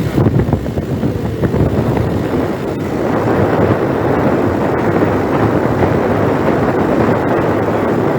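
Car driving along, with steady road noise and wind buffeting the microphone; the rush fills out and steadies about three seconds in.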